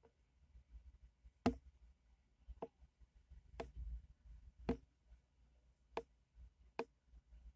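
Sparse, irregular single clicks or taps, roughly one a second, over a faint low rumble, heard from inside a car cabin.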